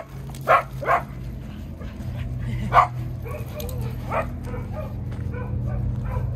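Small dog barking about four times in short, sharp barks, over a steady low hum.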